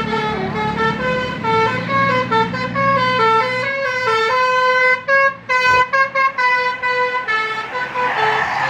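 Indonesian bus 'telolet' musical horn playing a quick stepping melody of short notes, with the bus engine humming underneath for the first few seconds. A rushing noise swells up near the end.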